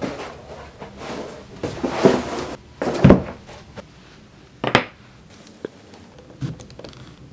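Handling noises on a wooden workbench: a rubbing, sliding sound as a leather sheet is spread flat, a heavy thud about three seconds in, then a sharp click and a few lighter taps.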